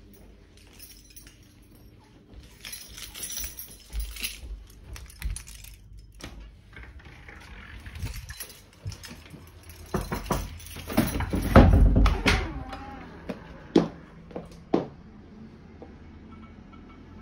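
Irregular knocks, clicks and rustles of footsteps, doors and the phone being handled while it is carried from room to room, with a louder run of thuds and a low rumble about ten seconds in.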